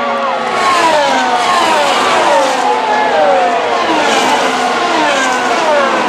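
Several 2017 Formula 1 cars, 1.6-litre turbocharged V6 hybrids, going past on the straight one after another, their engine notes overlapping and each dropping in pitch as it goes by.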